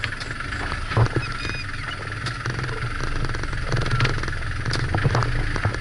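A safari jeep's engine running steadily as the jeep drives slowly into floodwater, with scattered knocks.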